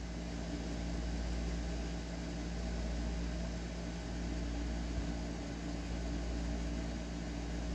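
A steady low machine hum made of several even tones over a soft hiss, with one small tick about five seconds in.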